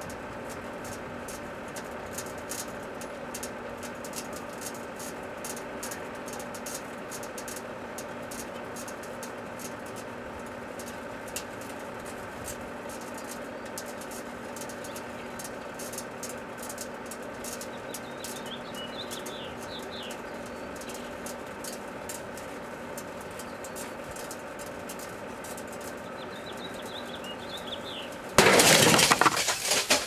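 A microwave oven runs with a steady hum and scattered crackling ticks while an aerosol can of Silly String heats inside. About two seconds before the end, the can explodes with a sudden, very loud blast, followed by breaking and rattling debris.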